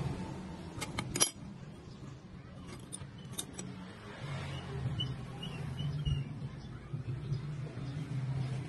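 Flat steel plate parts clinking and tapping against each other as they are handled and fitted together, with a sharp clink about a second in and a few lighter clicks around three seconds in, over a steady low hum.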